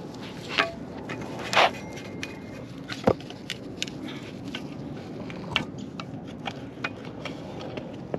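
Short metallic clicks and clinks of a wrench working on the O2 sensor fitting of a heat-wrapped motorcycle exhaust header. There are two louder knocks, about a second and a half and about three seconds in.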